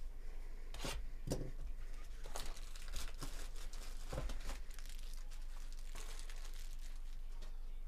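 Clear plastic shrink-wrap crinkling and tearing as it is pulled off a trading-card hobby box, in irregular crackles that die away in the last half-second or so.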